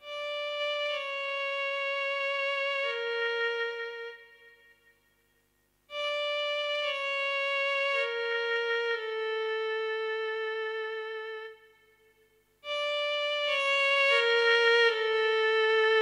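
Solo violin playing a slow melody in three phrases, each a line of held notes stepping down in pitch, separated by two short silences, about four and about eleven and a half seconds in.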